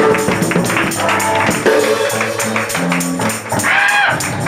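Lively church music: a tambourine shaking in a quick, steady rhythm over sustained bass notes and chords.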